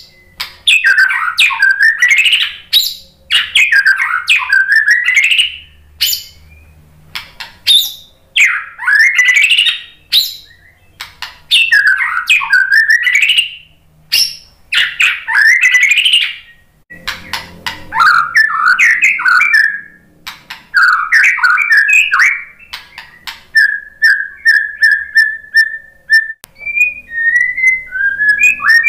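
White-rumped shama (murai batu) singing: loud phrases of rapid, swooping whistles and chattering notes, each a second or two long with short pauses between. Near the end the song turns into a fast run of short notes on one pitch, followed by a few clear whistles.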